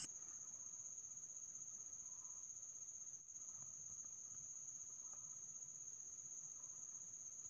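Quiet background with one faint, steady high-pitched whine and light hiss.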